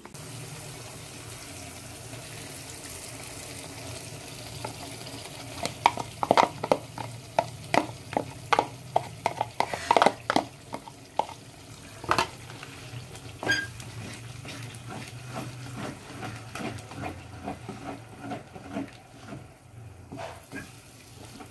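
Spiced curd going into onion-tomato masala frying in a kadhai, with a steady sizzle. A wooden spatula scrapes the bowl and knocks against the pan in a quick run of clicks and scrapes from about six seconds in, then stirs more lightly.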